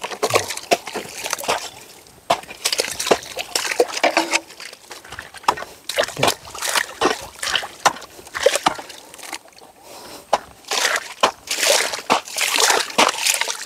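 A hoe chopping and scraping again and again into wet mud, with wet slopping and splashing. The mud is being dug away from a stuck hand tractor's wheel.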